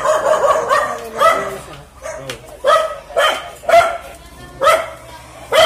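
A dog barking repeatedly and loudly, one sharp bark every half second to a second.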